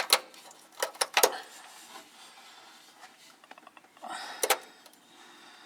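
Several sharp clicks and light knocks in the first second and a half, then a brief scraping rustle about four seconds in.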